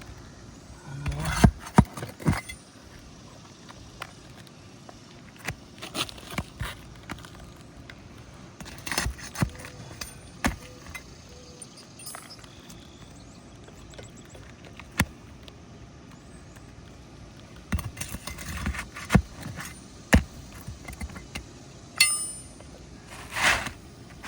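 Irregular clicks, scrapes and metallic clinks of a thin pry tool working on old, brittle asphalt roof shingles, prying them loose and pulling their nails, with quiet stretches between bursts.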